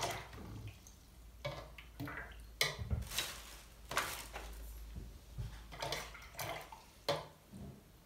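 A watercolour brush dabbed and swished in a water pot and paint palette, with scattered small clicks and taps. A short rustle of plastic comes about midway, as brushes are taken from a tray.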